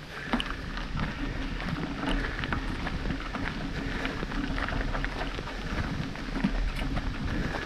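Steady crunching of gravel from movement along a gravel track, full of small clicks and rattles over a low rumble.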